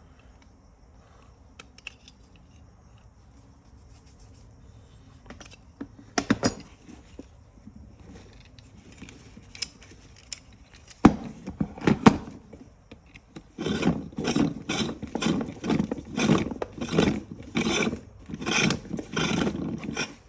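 Seatbelt retractor parts being handled and worked: a few light clicks, two sharp knocks about halfway, then a run of rasping, scraping strokes about two a second near the end.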